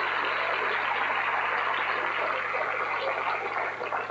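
Theatre audience applauding, a steady clapping that dies away near the end.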